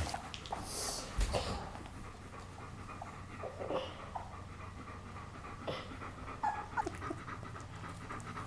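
Ten-day-old German Shepherd puppies giving short high squeaks and whimpers every second or two, over a dog's steady panting.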